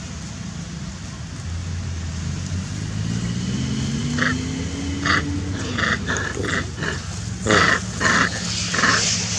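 Macaques giving a run of short, repeated squeals from about four seconds in, growing louder near the end. Under them runs a low engine hum that rises in pitch and falls again midway.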